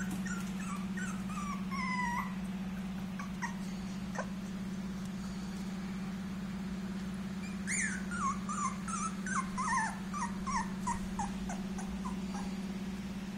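Whippet puppy whimpering: a long, high, falling whine near the start, then a run of short falling whimpers from about eight seconds in, over a steady low hum.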